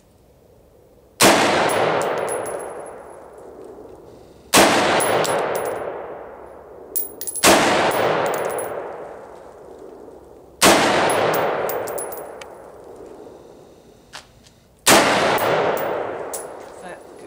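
AR-15 semi-automatic rifle fired five single shots, spaced three to four seconds apart, each crack trailing off in a long echo.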